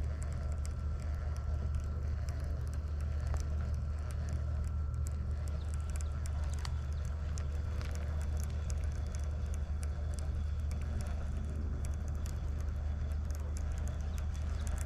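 Steady low rumble of distant road traffic, with scattered faint high ticks over it.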